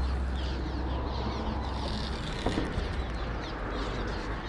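Many small birds chirping at once, a constant chatter of short, quick, falling chirps, over a steady low rumble.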